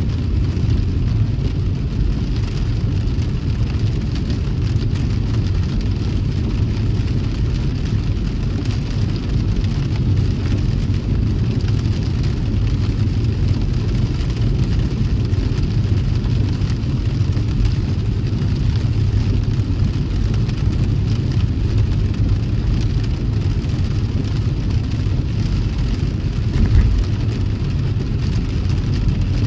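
Car driving in the rain: a steady low rumble of road and engine with a hiss of rain and wet tyres, and one brief thump near the end.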